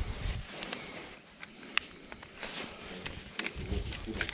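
Scattered light clicks and knocks of small objects being picked up and handled, with a brief low rumble of handling right at the start.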